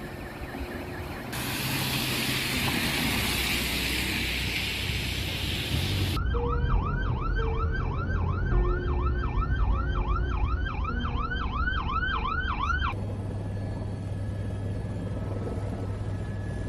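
An emergency vehicle siren wailing up and down about twice a second for several seconds in the middle, preceded by a loud rushing hiss and followed by a low steady hum.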